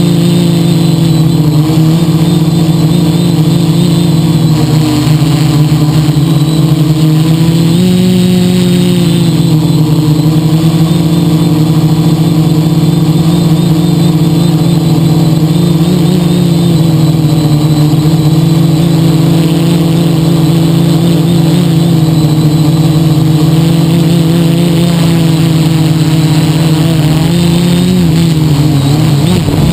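Quadcopter's electric motors and propellers whirring steadily in flight, heard close up from a camera on the airframe. The pitch steps up briefly about eight seconds in and wavers again near the end as the motors change speed.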